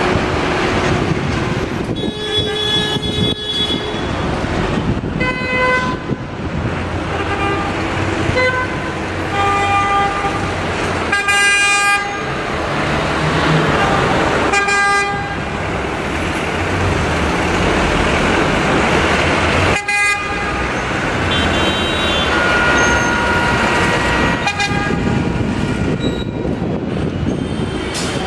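Road traffic running steadily, with vehicle horns sounding in short toots many times.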